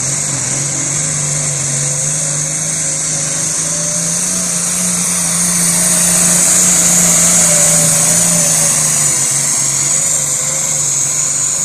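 International pulling tractor's diesel engine running flat out under load as it drags the weight sled down the track. It holds a steady engine note with a high whine over it, and gets a little louder just past the middle.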